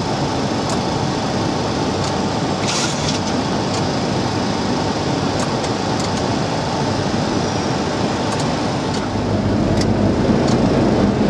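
Steady rush of airflow and jet engine noise in a Boeing 737-300's cockpit on approach, with occasional faint clicks. A deeper rumble swells in about nine seconds in.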